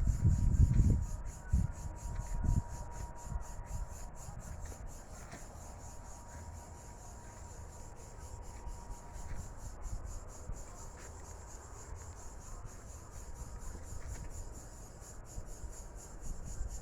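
A steady, high-pitched, rapidly pulsing buzz, like an insect's continuous call. Low thumps of handling or wind sit under it in the first second or so.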